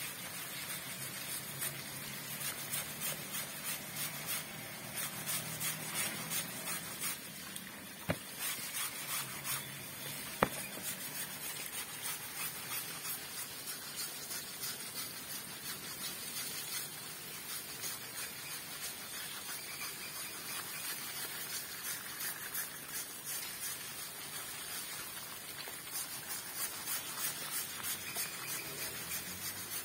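Hands scrubbing and rubbing an Asian elephant's wet tail and hind leg while water splashes and runs over the ground: a steady wet hiss full of small rubbing scrapes. Two sharp clicks come about eight and ten seconds in.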